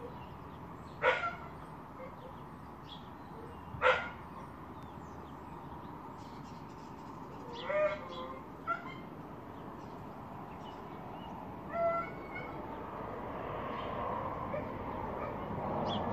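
An animal giving short, sharp bark-like calls, about five of them a few seconds apart, over a steady background hiss that grows slightly louder near the end.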